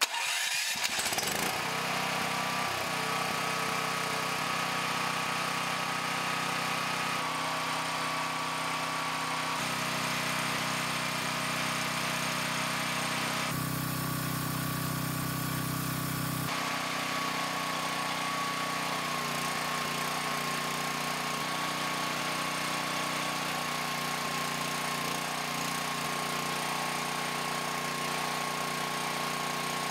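Portable generator's engine running steadily on jet fuel (kerosene), its tone shifting in steps a few times.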